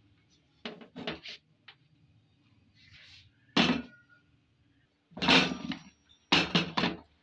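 A closed double-sided grill pan being handled and flipped over on a gas hob: a few light knocks about a second in, then a loud clank near the middle and two clusters of metal clatter near the end as the pan is turned and set back on the burner grate.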